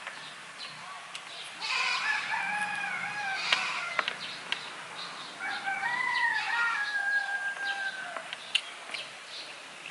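A rooster crowing twice, two long drawn-out crows in a row.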